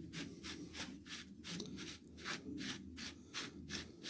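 End cap of a KTM motocross shock absorber's nitrogen reservoir being unscrewed by hand, the threads and gripping hand giving a faint scraping rasp that repeats about four times a second with each twist.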